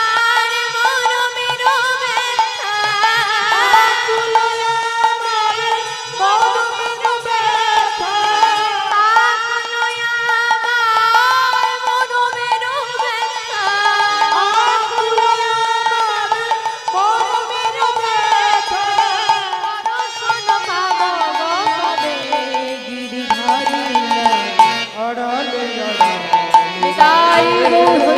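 Bengali devotional kirtan music: a voice singing over sustained melodic accompaniment and a steady hand-drum rhythm, the melody sliding lower about twenty seconds in.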